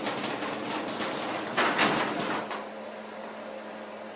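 Stanley 1/3 horsepower Deluxe chain-drive garage door opener running, its chain rattling and clicking as it drives the door, with a louder clatter about a second and a half in; the opener stops about two and a half seconds in, leaving a low steady hum.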